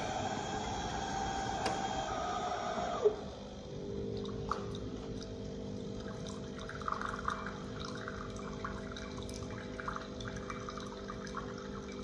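Fully automatic coffee machine running its start-up self-rinse. For about three seconds there is a rushing hiss, which cuts off sharply. Then comes a steady pump hum, with hot water trickling and splashing into the glass under the spout.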